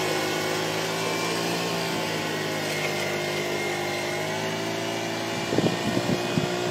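Radio-controlled scale model Caterpillar wheel loader running with a steady motor whine as it pushes gravel, with a few low knocks about five and a half seconds in.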